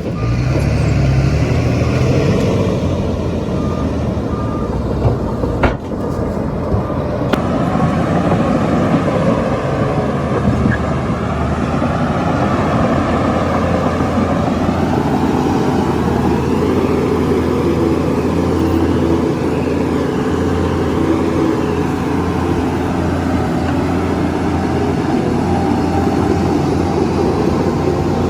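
Heavy diesel earthmoving machinery running steadily, with a single sharp knock about six seconds in.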